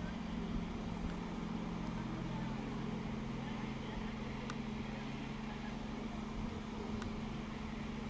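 Class 158 diesel multiple unit's underfloor diesel engines running with a steady low drone as the train approaches, with a few faint clicks.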